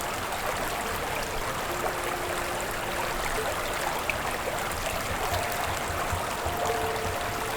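Running stream water, a steady rushing wash, with faint held tones sounding over it that grow more frequent in the second half.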